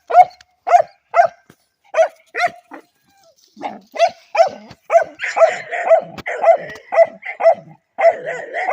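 Dog barking repeatedly, a run of short sharp barks about two a second. After a short pause about three seconds in, the barking resumes faster and denser.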